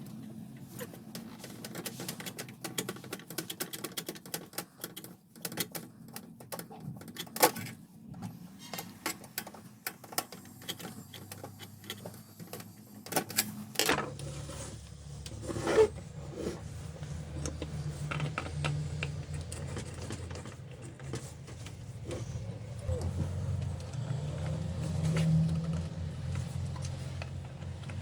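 Canon LBP 2900 laser printer mechanism clicking and rattling. About halfway a steady low motor hum sets in, with more clicks over it.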